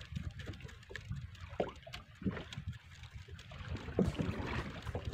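Water lapping against a small wooden boat's hull, under a low steady rumble of wind on the microphone, with a few light knocks.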